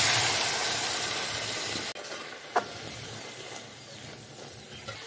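Water poured into a steel kadai of hot oil and fried jujubes hissing loudly as it flashes to steam, dying down after about two seconds to a quieter sizzle.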